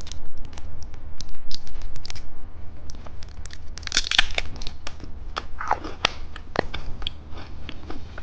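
Plastic candy packaging being handled and torn open: crinkling and crackling with many small sharp clicks and taps, densest about four seconds in.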